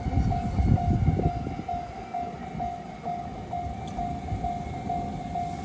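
Railroad level-crossing warning alarm ringing, a steady pulsed tone about twice a second. A train rumbles past at the start and fades after about a second and a half.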